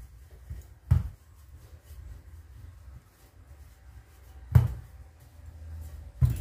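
Wooden rolling pin rolled back and forth over puff pastry dough on a countertop, a low rumble, with three sharp knocks: about a second in, about halfway through, and near the end.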